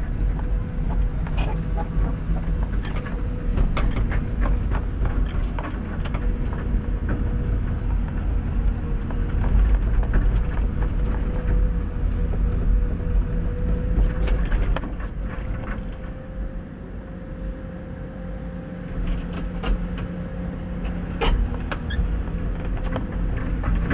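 XCMG excavator's diesel engine running, with a steady whine and scattered clanks and knocks; the engine eases off briefly about two-thirds of the way through.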